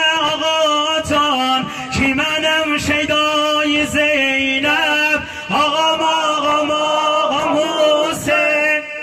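A male mourning chanter (meddah) sings a Shia lament (noha) for Husayn in long, held, wavering notes. Under the singing the crowd beats their chests in time, about one beat a second.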